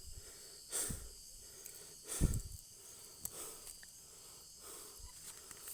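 Night insects, crickets, chirring steadily at a high pitch, with two short rustling thumps, about a second in and louder a little after two seconds in.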